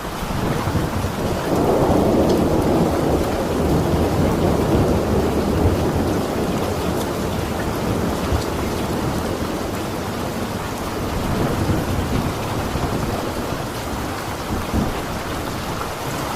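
Steady rain with a long roll of thunder that swells about two seconds in and slowly fades.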